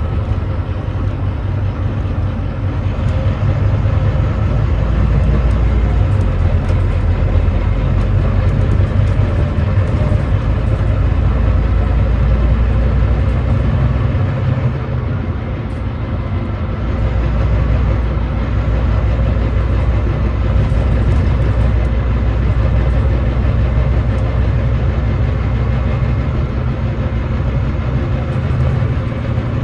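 Volvo D9B 9.3-litre diesel of a Volvo B9TL double-decker bus running under way, a steady low drone. It eases off briefly about halfway through, then pulls again. The engine has a misfire.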